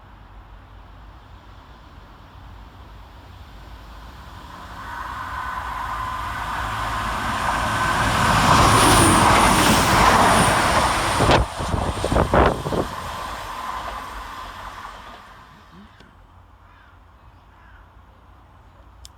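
A diesel train passing through the station: it builds from about four seconds in, is loudest between roughly eight and eleven seconds, and fades away by about sixteen seconds.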